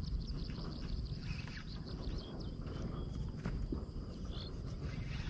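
Outdoor lakeside ambience: scattered short chirps of birds and insects over a low steady rumble.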